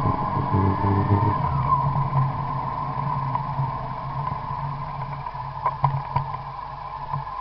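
Car moving slowly, heard from inside the cabin: a steady low hum with a constant higher tone above it. A tone slides down briefly about a second and a half in, and a few sharp clicks come about six seconds in.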